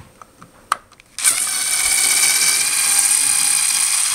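Cordless power screwdriver whirring steadily for about three and a half seconds as it backs out a screw holding a MOSFET against the inverter's aluminium case, which serves as its heat sink. It starts suddenly about a second in, after a couple of light handling clicks.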